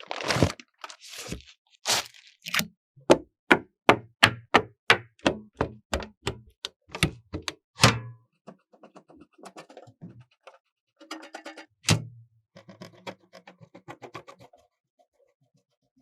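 A quick run of sharp knocks, about three a second, for around six seconds, then softer clattering and one more hard knock near the end.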